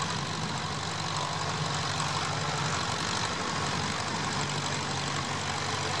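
Vintage Massey Ferguson tractor's engine running steadily under load as it pulls a plough.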